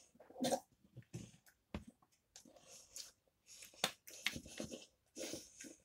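Soft chewing of breaded chicken nuggets, with scattered small clicks and mouth noises. In the second half come small handling noises as a plastic sauce bottle is picked up.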